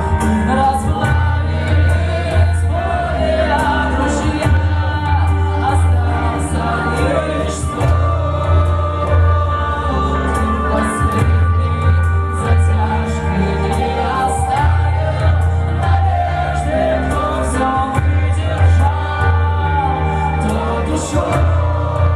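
A live band playing a song with a sung vocal over heavy, steady bass and drums with frequent cymbal crashes.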